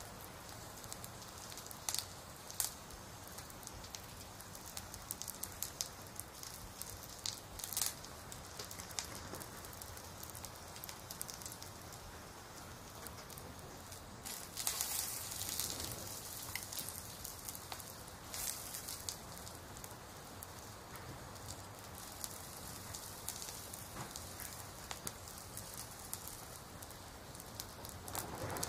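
Dry corn husks rustling and crackling as they are handled and folded, with irregular sharp crackles and louder rustles over a steady hiss.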